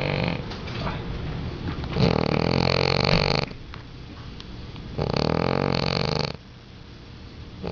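Loud snoring in long rattling snores about three seconds apart, with quieter breathing in between.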